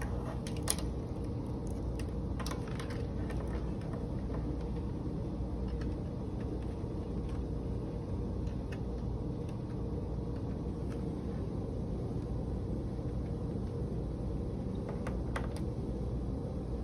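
Steady low hum of background noise, with a few light clicks: one about a second in and two near the end.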